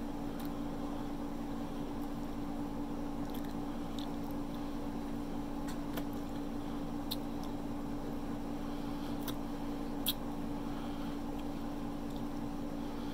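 Close-up chewing, biting and mouth smacks from someone eating a sauced breaded chicken wing, with a few sharp clicks, the loudest about ten seconds in. A steady low hum runs underneath.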